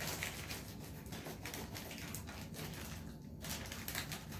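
Black plastic mailer bag crinkling and rustling as it is handled and opened, an irregular crackle of small ticks that eases off briefly about three seconds in.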